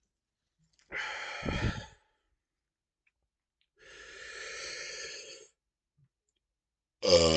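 Heavy breathing between soda burps: a short hard breath about a second in, then a longer sigh-like exhale midway. Near the end a loud, deep burp begins, its pitch sinking slightly.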